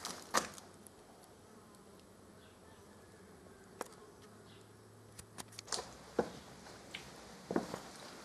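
Faint footsteps and scattered small knocks and clicks, with a faint steady low buzz for a few seconds in the middle.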